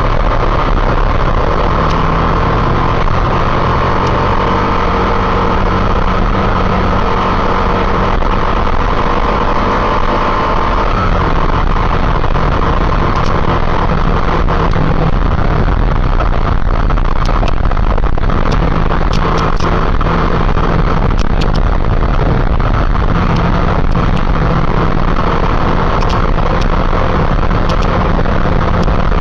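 Motorcycle engine running steadily while riding, under constant wind rush on the microphone.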